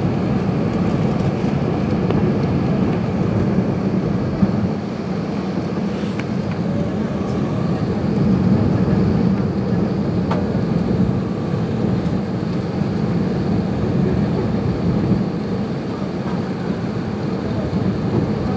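Steady cabin noise inside an Airbus A380 airliner in flight: an even, low rumble of engines and airflow, with a couple of faint clicks.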